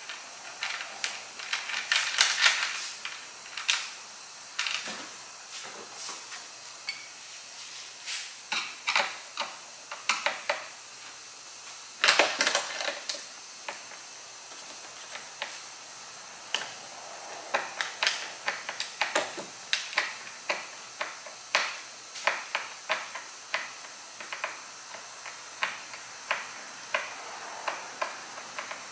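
Hand screwdriver driving screws into a kayak bow-mount plate: irregular runs of small clicks and scrapes from the tool and hardware, with louder clatters about two seconds in and again about twelve seconds in, over a steady faint hiss.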